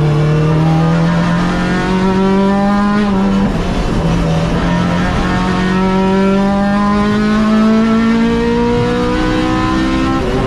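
Honda Integra race car's engine, heard from inside the cabin, accelerating hard: revs climb through one gear, drop sharply at a quick upshift about three seconds in, then climb steadily again through the next gear.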